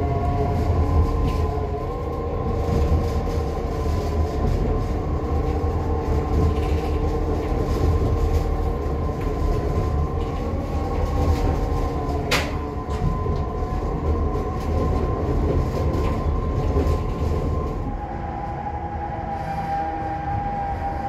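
A Tatra Electric Railway narrow-gauge electric railcar running, heard from inside the passenger compartment: a steady low rumble with a few steady tones over it, and a single sharp click about twelve seconds in. It gets a little quieter for the last few seconds.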